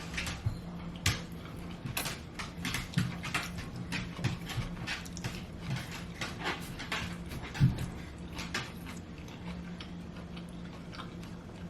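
Utensil clicking and scraping against a dish while a home-cooked noodle dish is eaten, in many irregular clicks, one louder knock about seven and a half seconds in, over a steady low hum.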